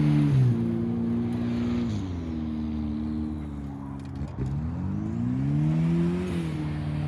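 Turbocharged Nissan Datsun 720 pickup's engine revving under load. Its pitch steps down twice in the first two seconds, dips sharply about four seconds in, then climbs and falls back near the end.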